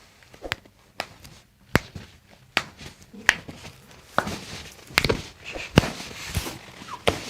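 A series of about ten sharp taps and clicks at irregular intervals, with soft rustling between them.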